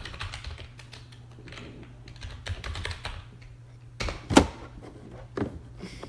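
Typing on a computer keyboard: a run of quick keystrokes, then a single much louder knock or click just after four seconds in, and a few scattered clicks after it.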